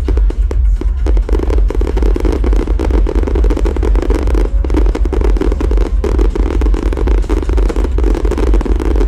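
Fireworks going off in a rapid, continuous barrage of bangs and crackles over a deep rumble, loud enough to overload the recording.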